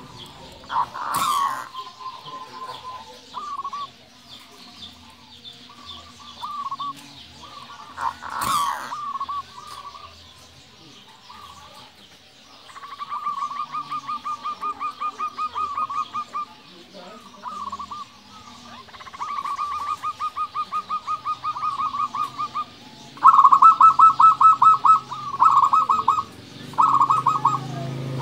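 Zebra dove (perkutut) cooing its song: phrases of rapid staccato notes on one pitch, some drawn out into long trilling runs, the loudest phrases near the end. Two sharp knocks, about a second in and about eight seconds in.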